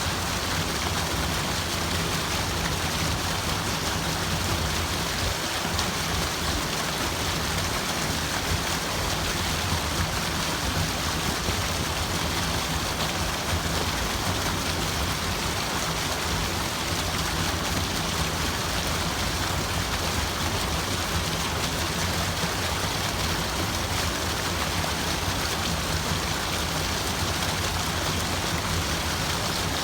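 Steady rushing water, an even, unbroken wash of noise with no separate splashes or drops standing out, used as white noise.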